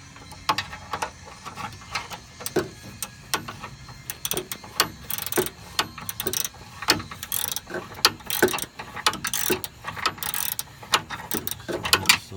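Ratchet wrench clicking in short, irregular strokes as it backs off the heat-loosened nut on a stabilizer bar link, with a few brief scraping noises mixed in.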